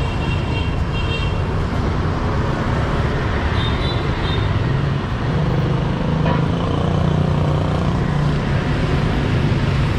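Busy street traffic, mostly motorbike engines with a few cars passing through an intersection in a steady rumble. Brief high horn beeps sound near the start and again about four seconds in.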